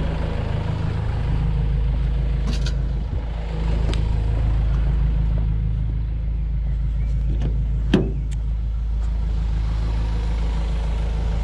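Large vehicle's engine running steadily with a low drone, with a few light knocks; the sharpest comes about eight seconds in.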